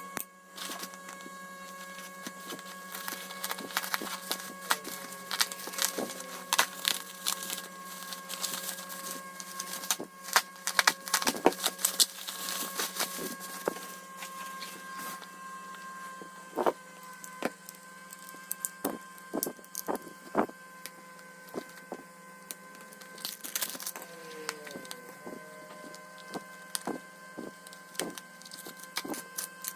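Packaging being handled and opened by hand: irregular crackling and clicking that comes in busier spells, over a steady electrical hum.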